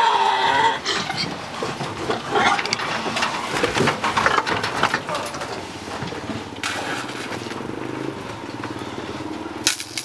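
Crowded pigs grunting and squealing, loudest at the start, with a couple of sharp knocks later on.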